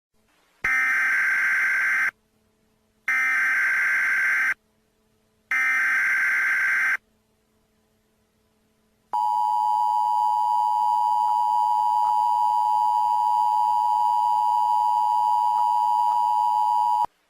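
Emergency Alert System SAME header: three identical bursts of warbling digital data tones, each about a second and a half long with a short silence between them. They are followed by the two-tone EAS attention signal, a steady shrill dual tone held for about eight seconds that cuts off suddenly. Together they mark the start of a new alert, here a civil danger warning.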